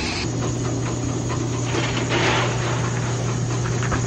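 Electric corn mill running, grinding nixtamal into masa: a steady low motor hum with a gritty crackle from the grinding, and a brief louder hiss about halfway through.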